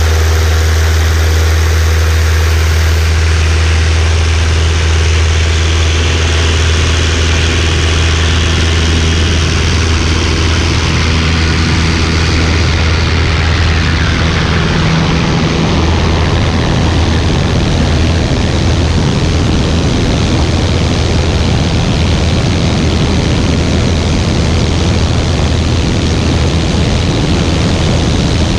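Piper PA-28-161's four-cylinder Lycoming engine and propeller at full takeoff power through the takeoff roll and lift-off: a loud, steady low drone. About halfway through, the engine's tones blur and a rushing air noise grows.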